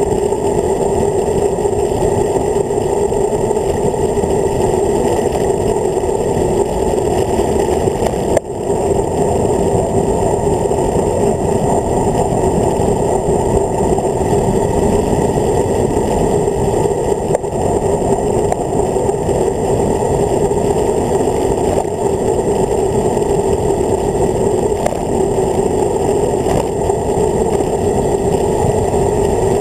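Steady wind rush buffeting a handlebar-mounted camera's microphone on a road bike descending at speed, with a single knock about eight seconds in.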